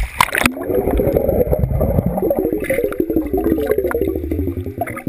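A splash as an action camera goes under the sea surface, then muffled underwater water noise with a dense crackle of bubbles and a low rumble.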